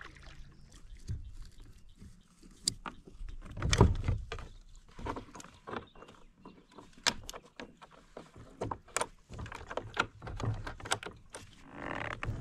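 Hard plastic knocks, clicks and rattles of gear being handled on a plastic fishing kayak as the paddle is put away and the pedal drive unit is set in place, with one heavier thump about four seconds in.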